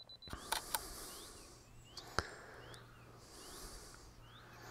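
Two quick clicks from a DSLR camera about half a second in and another click around two seconds, over short rising bird chirps repeated every second or so in quiet outdoor air.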